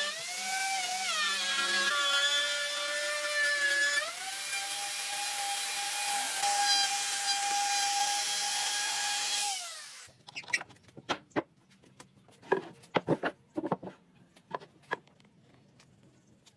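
A high-speed electric power tool working wood: a loud whine that dips in pitch as it bites into the wood and rises again, then holds steady and stops about ten seconds in. After it, a scatter of light knocks and clicks as the wood is handled.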